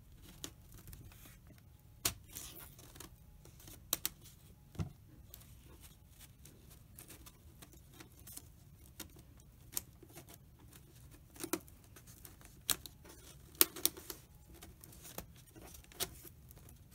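Wooden embroidery hoop being pressed down over cross-stitch cloth and the inner hoop by hand: scattered small clicks and taps of wood and fingers, a dozen or so spread irregularly, with faint rubbing of the fabric between them.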